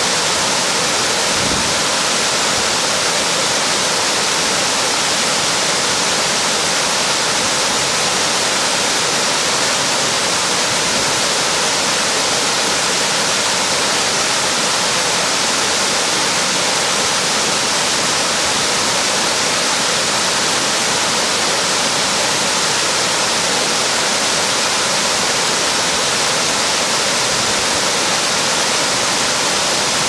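Waterfall cascading over boulders: a steady, loud rush of falling water, even and unbroken.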